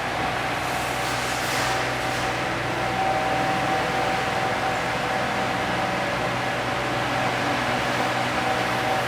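CNC router running on brass: a steady machine whine over an even hiss. The high hiss briefly brightens between one and two seconds in.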